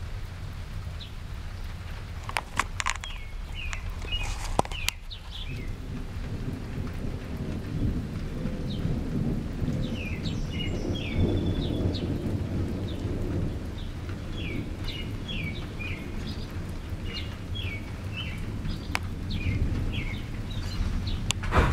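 A long, low roll of thunder that swells about six seconds in, peaks around the middle and slowly fades. Small birds chirp repeatedly over it.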